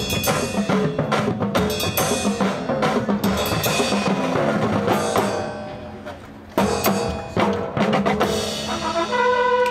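Drum and bugle corps playing: a percussion passage of rapid drum strikes that fades away about halfway through, then loud accented hits, and the brass comes in with held chords near the end.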